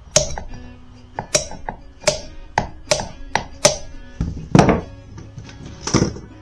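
About nine sharp metal blows at an uneven pace, each ringing briefly, the heaviest about four and a half seconds in: hammering on a part of the Yamaha Blaster ATV that is seized, 'really stuck on there'. Background music plays underneath.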